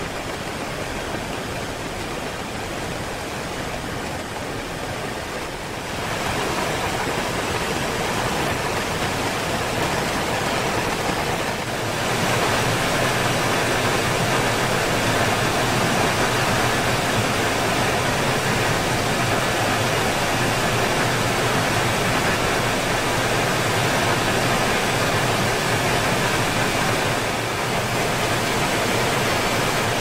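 Steady rushing noise of blast furnace plant machinery, with no distinct tones or knocks. It steps louder about 6 seconds in and again about 12 seconds in.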